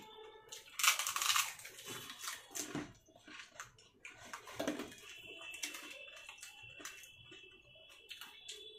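Fuchka (pani puri) being filled and eaten: crisp puri shells cracking and crunching, with small wet splashes of the spiced water and scattered clicks, loudest about a second in.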